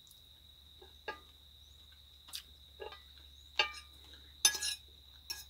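Metal fork tapping and scraping against a plate, a handful of separate clinks with the loudest cluster near the end, over a faint steady high-pitched whine.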